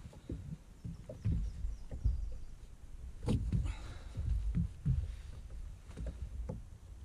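Irregular dull thumps and knocks from handling on a bass boat's deck, with a sharper knock and a short rustle about three seconds in.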